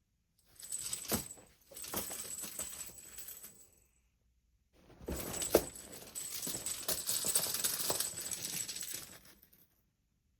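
Cat wand toy being shaken and dragged about in play: two stretches of rattling rustle, a few seconds each, with a sharp knock early in each.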